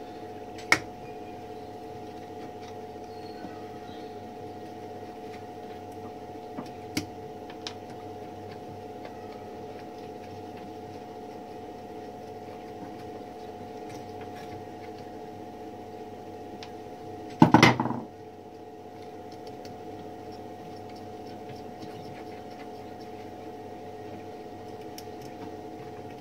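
Metal parts of an antique typewriter clicking as it is taken apart: a few sharp single clicks, then a short, loud metallic clatter about seventeen seconds in, over a steady background hum.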